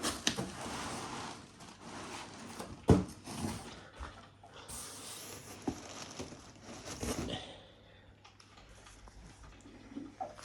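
Handling of the 3D printer's upside-down cardboard shipping box and its packaging: irregular rustling and scraping, with a sharp knock about three seconds in and a lighter click a little later.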